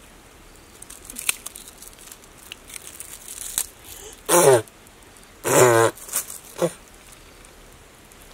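Two short, loud, wavering vocal calls about four and five and a half seconds in, with a brief third one soon after, over a soft rustle of cloth being handled.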